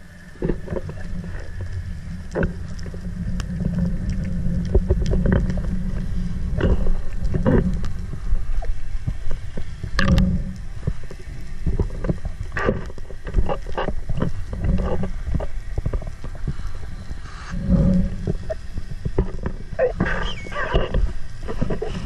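Muffled underwater sound picked up by the camera while diving: a steady low rumble of water moving around the housing, with scattered clicks and knocks throughout and some gurgling near the end.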